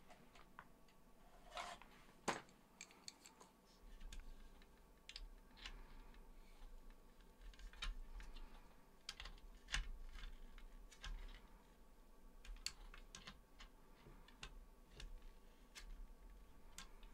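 Faint, irregular small clicks and taps of an SMA bulkhead adapter's nut being threaded and tightened by hand onto the enclosure wall, with a sharper click about two seconds in.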